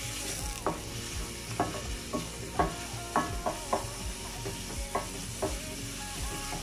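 Grated onion with cinnamon sticks and cardamom pods frying in oil in a stainless steel pan, sizzling steadily while being stirred. The wooden spoon knocks against the pan again and again, each knock ringing briefly.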